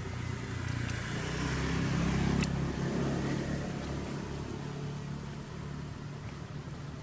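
A motor vehicle passing on the road, its engine hum swelling to a peak about two seconds in and then fading away.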